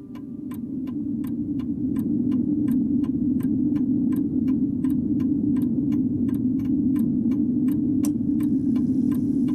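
A clock ticking steadily, about three ticks a second, over a low rumbling noise that swells up over the first two seconds and then holds steady, louder than the ticks.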